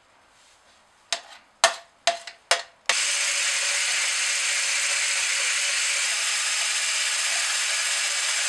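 A few sharp knocks, then about three seconds in a handheld electric whisk starts and runs steadily at one speed, beating egg yolk in a plastic measuring jug.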